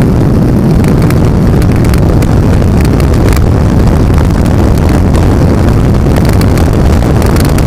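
A Skater powerboat's Chief Custom engines running flat out at full throttle, a loud, steady, deep drone with no change in pitch. Wind buffets the microphone with short crackles throughout.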